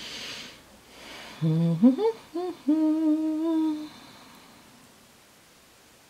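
A woman humming a few notes to herself: a low note, a quick rise, two short dipping notes, then one held note of about a second that stops about four seconds in.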